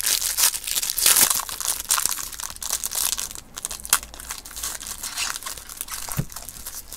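Trading card pack wrappers crinkling and tearing as 2015 Panini Americana packs are opened and handled, a run of irregular crackles.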